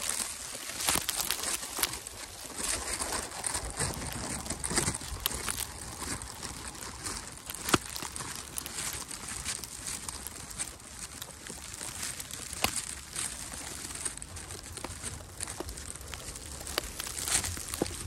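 Footsteps crunching through fresh snow, with irregular sharper crunches over a steady hiss.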